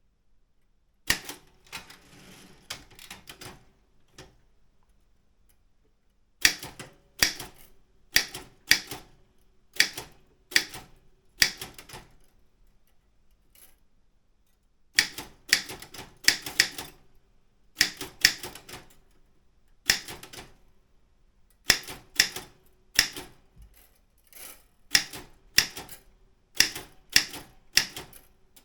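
Keys of a Daro Optima M16 manual office typewriter striking one at a time at a slow pace, about one to two strikes a second, in short runs broken by pauses of a second or more.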